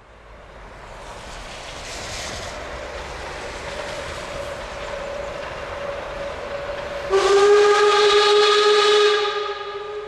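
Narrow-gauge steam train approaching with a rumble and hiss that grows louder. About seven seconds in, the locomotive's steam whistle gives one loud, shrill blast of about two seconds, which then tails off.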